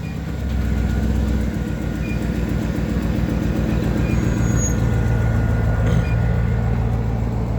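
Car engine running steadily, a low hum that grows a little louder about half a second in.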